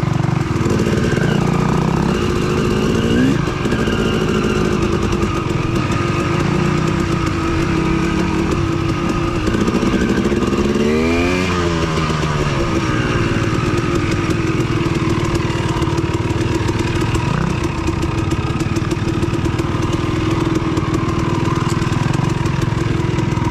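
Yamaha WR450F dirt bike's single-cylinder four-stroke engine running under throttle on a trail ride, its pitch rising and falling as the rider works the throttle, with a sharper rev up and back down about eleven seconds in.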